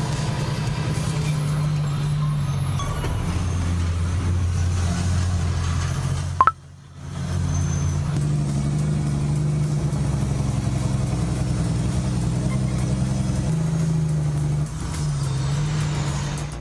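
Large diesel vehicle engine running under load, its pitch shifting a few times. A sharp click about six and a half seconds in is followed by a brief drop out before the engine sound returns.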